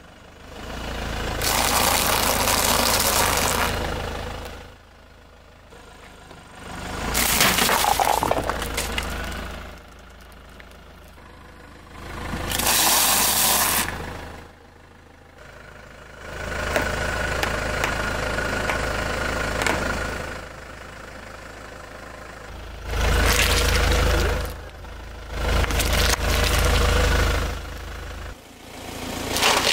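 A car tyre rolling slowly over heaps of crunchy and soft food and crushing them, in about six separate loud passes of a few seconds each, with cracking and crunching. A car engine idles quietly between the passes.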